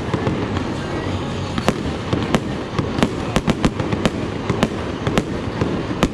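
Fireworks display going off: about a dozen sharp cracks and bangs at irregular intervals over a continuous low rumble of launches and bursts.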